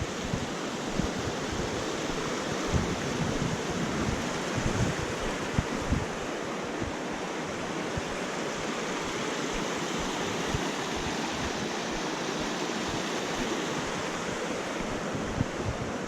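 Creek water rushing in a steady hiss, with wind buffeting the microphone in irregular low thumps.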